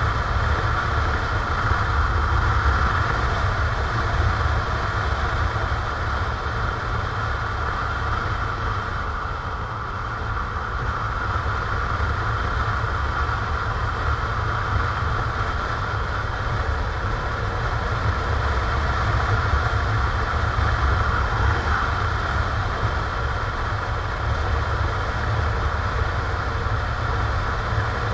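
Motorcycle engine running with wind rush while riding, heard from a camera mounted on the bike: a steady low rumble and hiss that eases slightly about ten seconds in, then picks up again.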